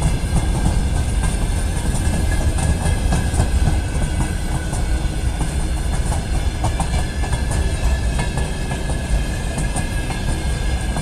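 Loaded freight train of open-top gondola wagons rolling past at speed: a steady heavy rumble with the wheels clattering over the rail joints.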